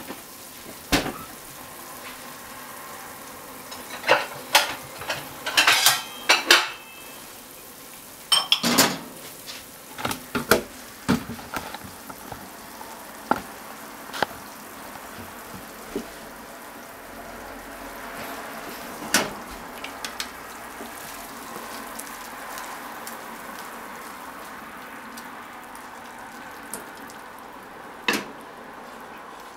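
Chopsticks clacking against a frying pan and a ceramic bowl, with many sharp clicks in the first half and only a few later, over a steady sizzle of shrimp and potatoes frying in the pan.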